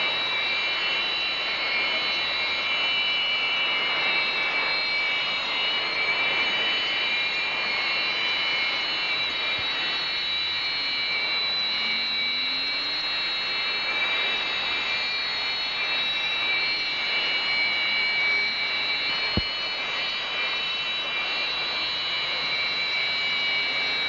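Jet turbine engines running steadily on the ground, a constant rushing hiss with a high multi-tone whine. One sharp click about three-quarters of the way through.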